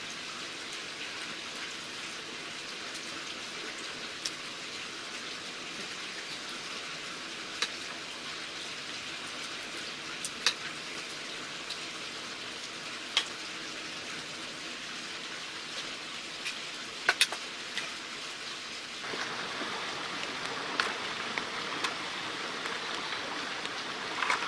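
Steady rain-like hiss with a few sharp, single clicks of a spoon against metal dishes while vegetables are being stuffed. About 19 seconds in, the hiss steps up and becomes louder and fuller.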